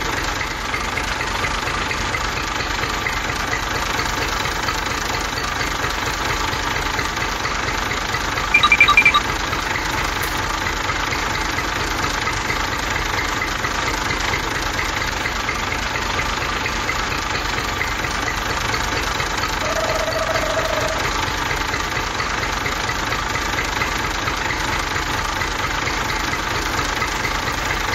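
Small battery-powered toy tractor motor and gearing running, a steady buzz. A brief, louder high tone sounds about nine seconds in.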